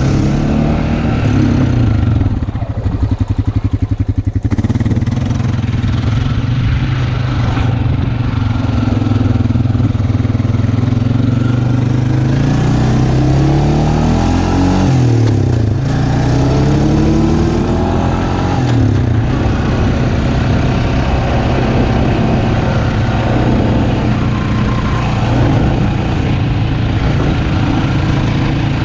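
2008 Honda Rancher ATV's single-cylinder engine running on a test ride, its revs rising and falling several times, with a short stretch of slow, evenly spaced firing pulses about three seconds in.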